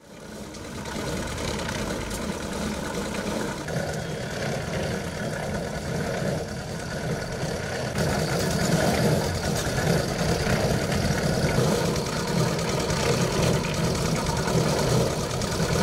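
Concrete mixer's engine running steadily, a low, continuous hum.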